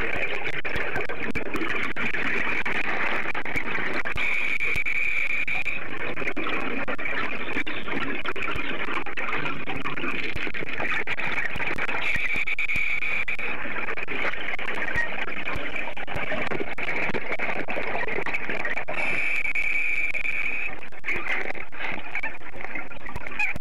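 Steady underwater hiss with a brighter bubbling rush three times, about seven seconds apart, the rhythm of a scuba diver's regulator breathing and exhaled bubbles.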